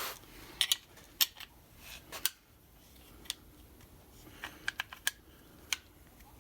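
Scattered sharp clicks and light taps of a Model T transmission band and its small metal parts being handled, about a dozen irregular ticks with a small cluster a little past the middle.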